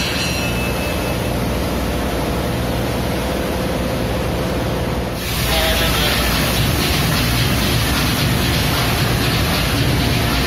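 Large MAN B&W two-stroke marine diesel engine running, heard close up in its engine room as a steady, loud rumble with a dense hiss. About five seconds in the noise grows brighter and a little louder.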